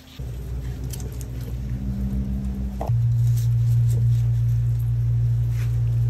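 A loud, steady low rumble that jumps louder about three seconds in, with a few short crisp cracks above it as a knife cuts through the crackling skin of crispy pork belly on a wooden chopping board.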